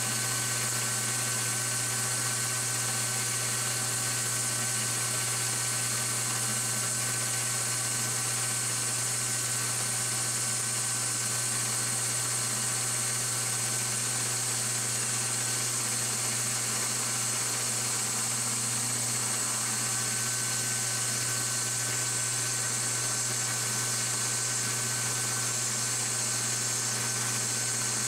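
Metal lathe running at about 300 RPM while a cutoff (parting) blade power-feeds steadily into a spinning metal slug, cutting without chatter, over the hiss of an oil mister.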